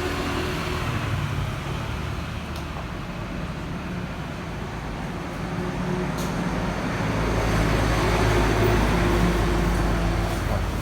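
Low, steady rumble of road traffic, growing louder about seven seconds in.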